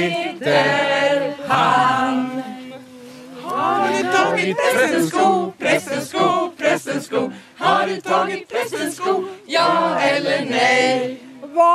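A small group of voices singing together unaccompanied, with long held notes in the first few seconds and then quicker, shorter phrases.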